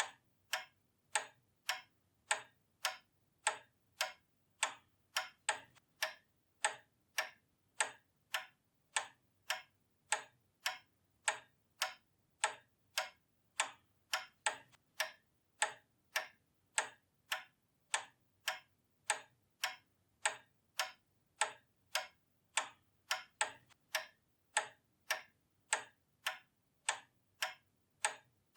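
Pendulum clock ticking steadily, a little under two sharp, even ticks a second.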